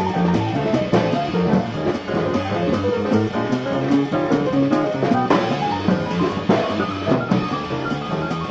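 Live small-group jazz playing a blues, with the drum kit keeping time under piano and upright bass lines. It is a cassette recording with dull, limited fidelity and no top end.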